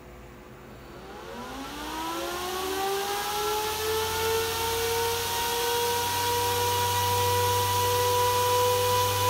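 Antminer A3 ASIC miner's cooling fans spinning up as the miner boots: a rising whine that climbs for a few seconds, then levels off into a loud, steady fan whine and blowing at full speed.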